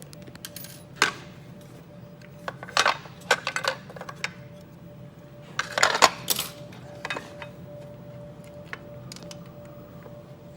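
Small metal parts and hand tools clinking and clattering as they are handled, in short irregular clusters of sharp clicks, over a steady low machine hum.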